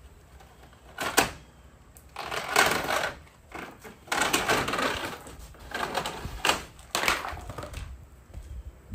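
Irregular bursts of knocking, scraping and rattling, with a sharp knock about a second in.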